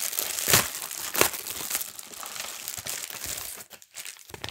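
Plastic mailing envelope being torn open and crinkled in the hands, with two louder crackles in the first second and a half; the rustling thins out near the end.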